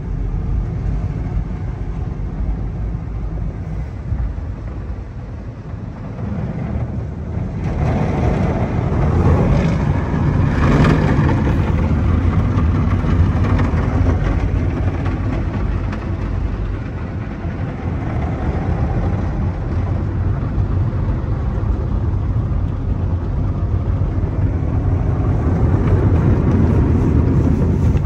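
Automatic car wash heard from inside the car: foam and water spraying onto the glass and body over a steady low rumble of the wash machinery. The spray grows louder about eight seconds in.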